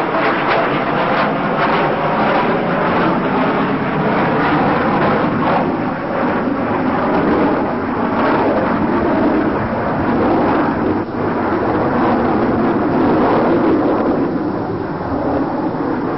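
Jet engines of a four-engined Myasishchev strategic bomber running at power: a loud, steady, rumbling noise with no clear pitch.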